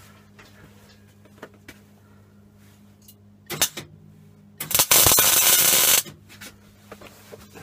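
MIG welder arc on the steel of a gas bottle: a short burst about halfway through, then a steady crackling weld of just over a second that cuts off abruptly. Faint ticks come before it.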